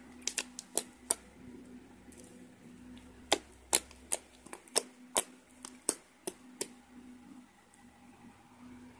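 Glossy PVA-glue slime being squeezed and poked by fingers, making a string of about fifteen sharp, irregular clicks and pops over the first seven seconds. A faint steady low hum runs underneath.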